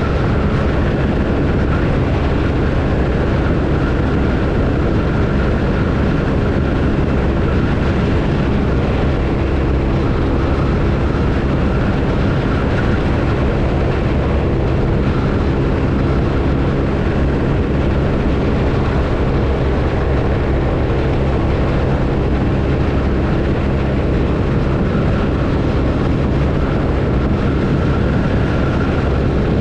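BMW R1250RT's boxer-twin engine running at a steady cruising speed, its note even with no change in revs, under a constant rush of riding noise.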